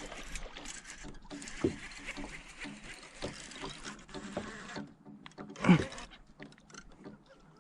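Small knocks and rustles of gear aboard a fishing kayak. A steady hiss runs for a few seconds and stops suddenly about two-thirds of the way in, and a louder knock comes shortly after.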